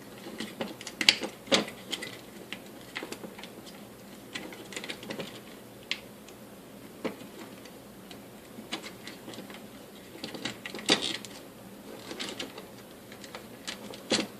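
Irregular clicks and clacks of small plastic and metal parts being handled in an opened electric stapler's housing, with the sharpest knocks about a second in and near eleven seconds.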